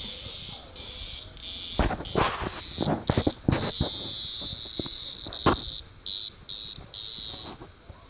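Large cicada held in a small dog's mouth, giving its loud, harsh buzzing distress call, broken by short gaps and cutting off near the end. Several sharp clicks come about two to three and a half seconds in.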